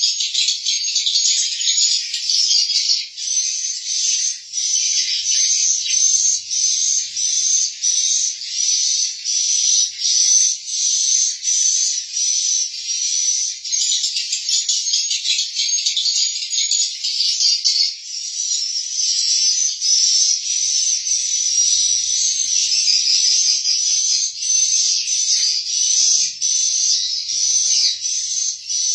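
Edible-nest swiftlets chirping inside a swiftlet house, a dense, steady stream of high, rapid chirps repeating about twice a second.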